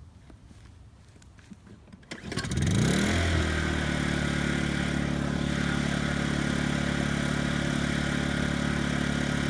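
Honda EU2000i inverter generator's single-cylinder four-stroke engine pull-started about two seconds in, catching at once; its pitch rises quickly as it comes up to speed, then it runs steadily in non-eco (full) mode. A few faint clicks come before the start.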